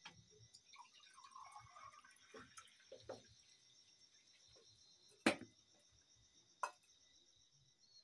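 Faint trickle of liquid poured from a steel jug into a mug, with crickets chirping steadily in the background. Metal utensils clink sharply twice in the second half.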